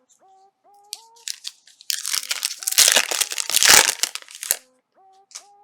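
Plastic foil card-pack wrapper being torn open and crumpled: a dense stretch of crinkling from about two seconds in, loudest in the middle, with brief rustles before and after. Faint background music with short rising notes underneath.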